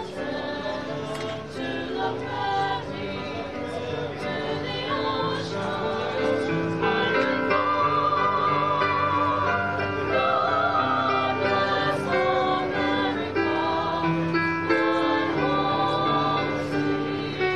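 Small mixed choir of young voices singing with electronic keyboard accompaniment. About halfway through, a high voice holds notes with a wide vibrato.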